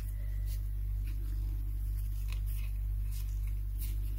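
A few faint ticks and light rustles from waxed polyester macramé cords being handled by fingers, over a steady low hum.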